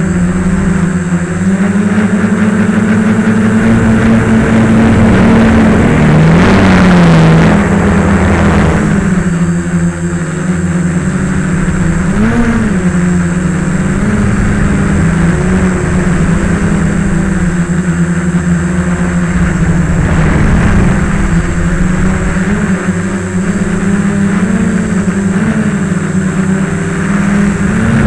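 Multirotor drone's electric motors and propellers buzzing, heard close up from the onboard camera, the pitch wavering up and down as the throttle changes. About six seconds in, a louder rushing noise swells for a few seconds as the drone speeds up, then the steady buzz returns.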